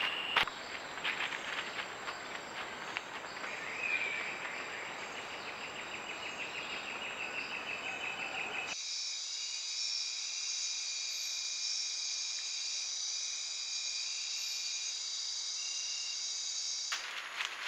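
Jungle insects calling in a steady chorus. About nine seconds in the sound cuts abruptly to a cleaner, higher, continuous night chorus of crickets and other insects.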